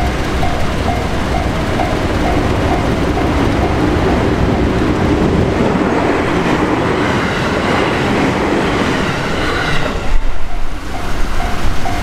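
Japanese level-crossing warning bell dinging about three times a second while an electric train runs through the crossing. The train noise swells and covers the bell, gives a few loud gusts about ten seconds in as the train clears, and then the bell comes through again.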